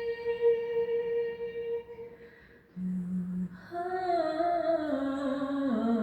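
A female voice sings a song cover, holding a long steady note that fades out about two seconds in. After a short pause, a wordless sung line begins and slides downward in pitch.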